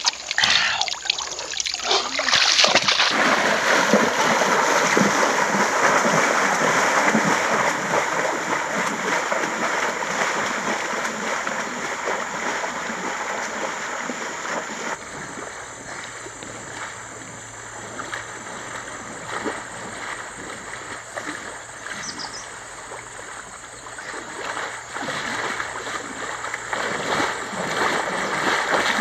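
Water splashing and sloshing as a person wades through a shallow stream, with a few sharp splashes at the start and the churning loudest in the first half, quieter in the middle and building again near the end.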